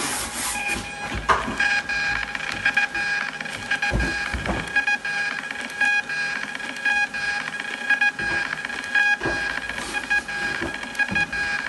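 Xprinter XP-450B thermal label printer printing and feeding out a strip of shipping labels: its feed motor gives a steady whine with many small ticks, and a few sharper knocks.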